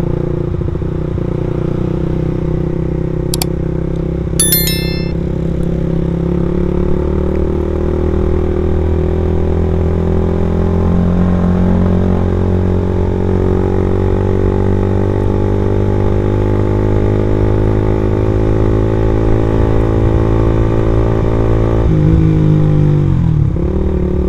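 Suzuki Satria F150 fuel-injected single-cylinder engine running through an aftermarket racing exhaust while riding at low speed. Its pitch climbs slowly as the bike gathers speed, then drops off sharply near the end as the throttle is closed. About four seconds in there is a brief high ringing chirp.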